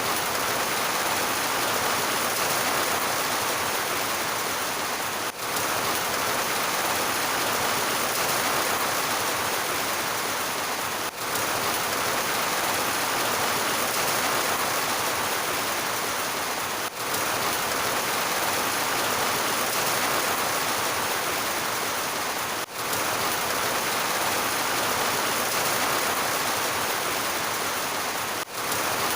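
Heavy rain falling in a steady, dense hiss, with a brief dip in level about every six seconds.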